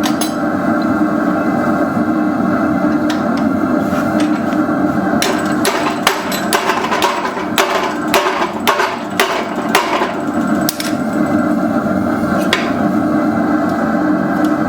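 Blacksmith's hammer forging hot 3/8-inch round steel stock on the anvil: a few scattered blows, then a run of about a dozen strikes, roughly two a second, from about five to ten seconds in, and one more blow near the end. A steady loud rushing noise runs underneath.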